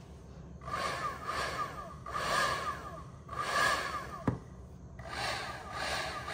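Handheld heat gun blowing hot air over the wax surface of a candle in a glass jar to melt away surface bubbles, its airflow swelling into a whoosh about once a second as it is swept to and fro over the jar, over a steady low motor hum. A single sharp click a little past the middle.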